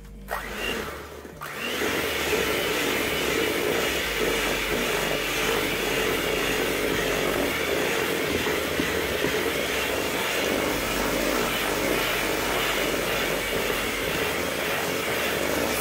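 Electric hand mixer running steadily, its beaters churning flour into creamed butter-and-sugar cookie dough in a metal bowl; it starts about a second and a half in.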